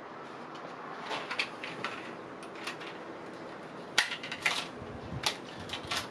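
Light clicks and taps of small computer hardware being handled over a faint steady hiss, with a sharper knock about four seconds in and a few more after it.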